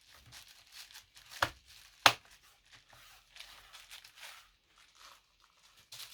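Hands handling small hardware: irregular rustling with two sharp clicks, about a second and a half and two seconds in.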